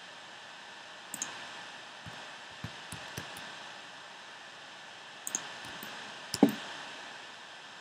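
Scattered clicks of a computer mouse and keyboard, about ten of them, over a steady hiss. The loudest, about six and a half seconds in, has a dull thump.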